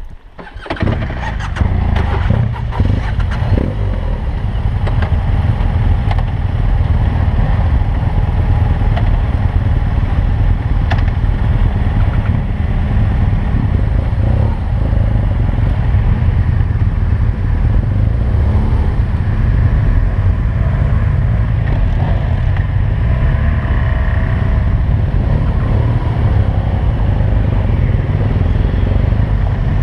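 Motorcycle being ridden, its engine running steadily under a heavy low rumble; the sound starts abruptly about half a second in, with a few clattering clicks in the first seconds.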